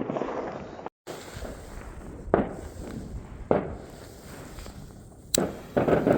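New Year's Eve firecrackers going off: single sharp bangs a second or more apart, then a quick cluster of cracks near the end.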